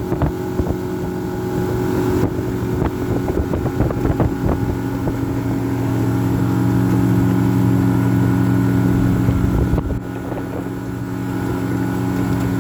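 Fishing boat's motor running under way with wind buffeting the microphone; the engine note steadies and gets louder about halfway through, then eases back near the end.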